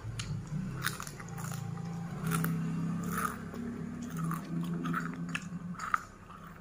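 A person chewing and biting crunchy food close to the microphone, eating rice and fried crackers by hand: scattered crisp crunches over mouth noises, with a low steady hum underneath through the middle.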